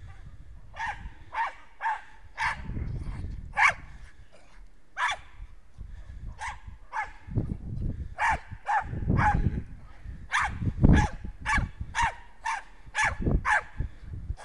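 Small dog barking over and over in short, high-pitched yaps, about twenty in uneven runs. Low rumbling noise comes and goes between the barks.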